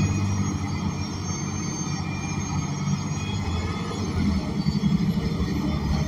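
ElDorado National Axess BRT transit bus's Cummins Westport L9N natural-gas engine and Voith D864.6 automatic transmission running, a steady low rumble heard from the rear of the cabin with the HVAC off.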